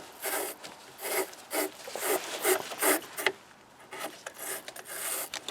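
Battery terminal wire brush scrubbing a battery post, rasping back and forth in quick strokes, a little over two a second, with a short pause after about three seconds. It is cleaning off corrosion.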